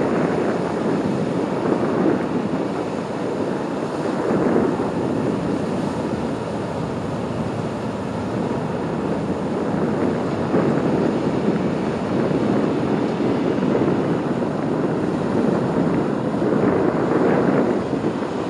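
Wind rushing over the microphone together with the wash of sea water, swelling and easing every few seconds.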